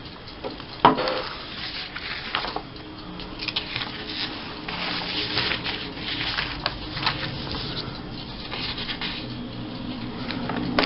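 Rummaging through paper and plastic craft supplies: scattered rustles and small clicks, with one sharp click about a second in and busier rustling later on.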